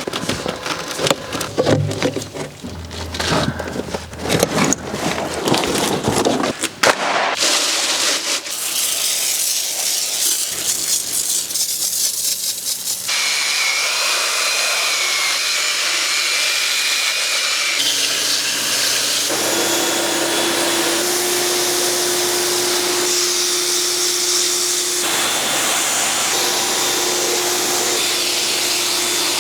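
About seven seconds of irregular scraping and knocking from carpet and interior work, then a motor-driven cleaning machine running steadily with a held whine. The machine sound changes pitch abruptly several times, as separate clips cut together.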